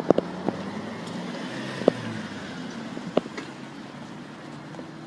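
A car driving past over the level crossing, its noise swelling and fading about two seconds in, over a steady low engine hum. A few sharp clicks sound through it.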